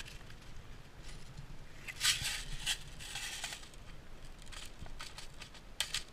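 Crunching and rustling of footsteps and gear moving through brush, in irregular short bursts. The loudest bursts come about two seconds in and near the end.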